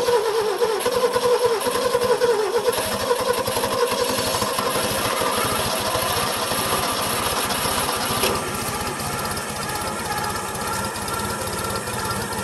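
Satoh S650G tractor's Mazda 1.0-litre four-cylinder gasoline engine running, its speed wavering and louder for the first two seconds or so, then settling into a steady run. The carburettor floats have just come unstuck and the engine is no longer spewing fuel.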